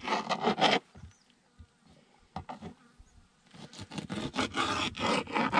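Kitchen knife slicing through a squid tube on a plastic cutting board, in quick back-and-forth strokes: one spell in the first second, then a pause with a few faint taps, then a second spell from about three and a half seconds in.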